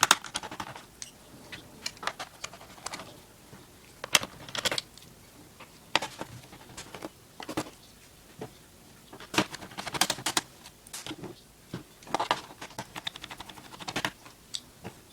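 Irregular sharp clicks and taps, some in quick clusters, as a screwdriver takes the screws out of a laptop's plastic bottom case.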